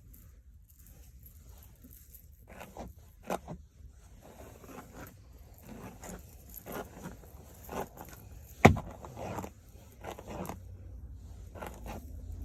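A hairbrush drawn through a short human-hair bob wig in repeated, irregular strokes, with one sharp knock about two-thirds of the way through.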